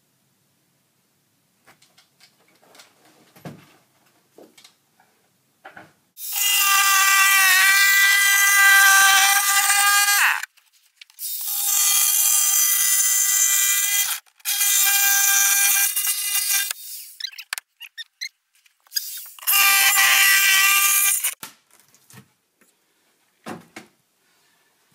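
Handheld electric power saw cutting through a panel in four runs of a few seconds each, each a steady high whine over cutting noise, with light knocks and handling sounds in the gaps.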